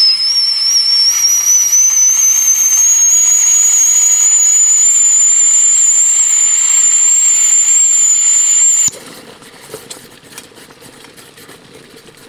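Stainless steel chimney camp kettle whistling at the boil through its stopper, one loud high whistle creeping slowly upward in pitch. It cuts off suddenly about nine seconds in as the whistle stopper is pulled, leaving faint crackling from the fire.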